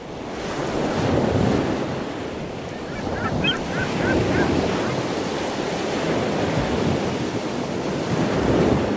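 Ocean surf: waves washing in and out, the sound swelling and ebbing about three times. A short run of high chirps about three seconds in.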